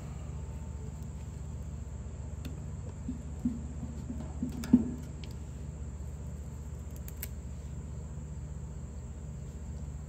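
Steady high-pitched chorus of crickets, with a few soft knocks and one sharp click about halfway through.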